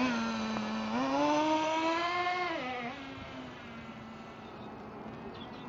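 HPI nitro RC car's small engine buzzing, revving up from about a second in and dropping back near three seconds, then running fainter and steady as the car gets farther away.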